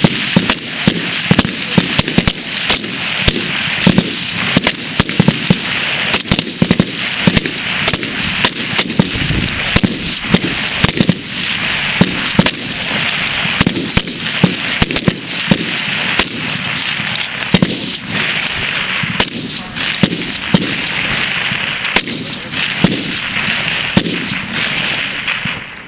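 Many rifles firing a timed rapid-fire string on a high-power rifle firing line. The shots come sharp and irregular, overlapping without a break, with echo filling the gaps. The firing thins out and stops just before the end.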